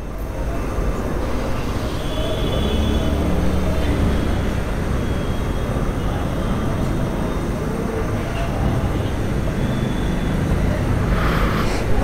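Steady rumble of road traffic and vehicle engines, with a few faint thin tones coming and going.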